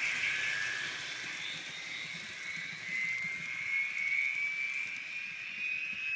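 Sound decoder of an N scale Scale Trains GTEL 'Big Blow' gas-turbine locomotive model playing its turbine whine through the model's small speaker, over a steady hiss. The whine rises slowly in pitch as the turbine spools up.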